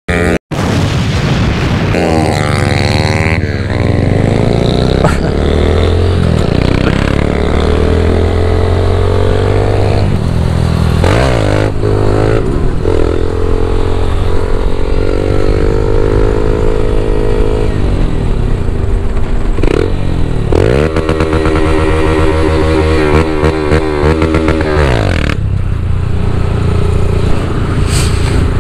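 Honda motorcycle engine running hard, its pitch rising and falling over and over as the throttle is opened and closed, with a low rumble of wind and road underneath.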